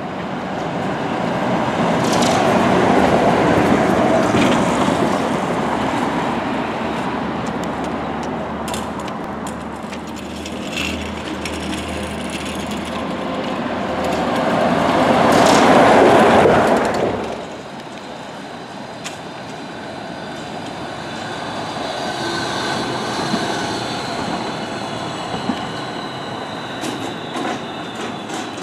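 Articulated electric trolleybus passing close by in street traffic, growing louder to a peak about sixteen seconds in. The sound then drops suddenly to a quieter street scene, where a faint high whine runs under the traffic noise near the end.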